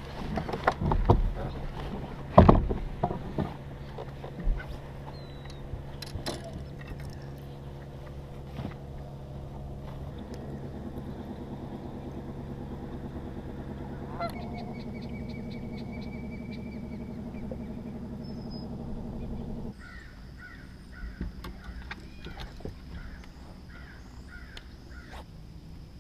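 A few loud knocks and clunks of gear on a boat's front deck, then a boat motor running steadily until it cuts off suddenly about twenty seconds in. After that come short repeated bird calls.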